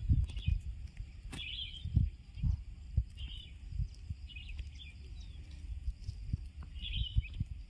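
Short bursts of bird chirping repeating every second or two, over an uneven low rumble with a few louder low thumps.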